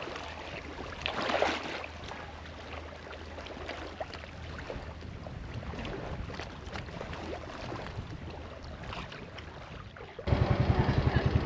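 Seaside ambience: gentle waves washing on the shore with wind on the microphone and a steady low hum, with a brief louder wash about a second in. Near the end the sound cuts abruptly to a loud engine running with an even, rapid pulse.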